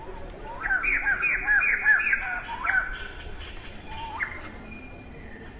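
An animal calling: a quick run of about eight arched, chirping call notes, about four a second, with one more rising note a little later.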